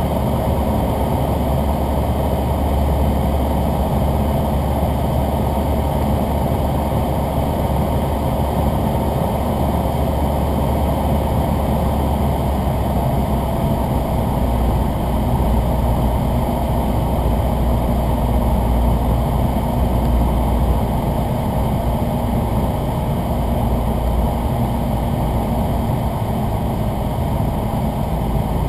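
Cessna 172N Skyhawk's four-cylinder Lycoming engine and propeller droning steadily in flight on approach.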